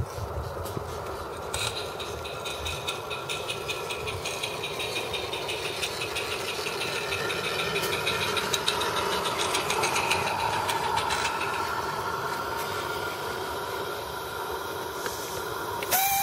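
Roundhouse Silver Lady live steam garden-railway locomotive running past with its wagon: a fast, steady ticking rattle that grows louder as it passes about halfway through, then fades. A short loud burst comes right at the end.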